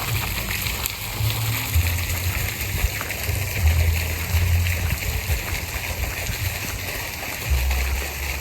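Steady outdoor hiss with uneven low rumbling from wind buffeting the microphone.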